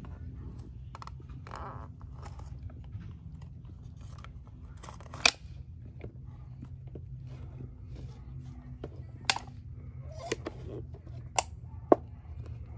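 Little Tikes Monster Dirt Digger plastic toy digger working in dirt: the scoop crunches and scrapes, with scattered small clicks and sharp plastic clacks about five seconds in, about nine seconds in, and twice near the end.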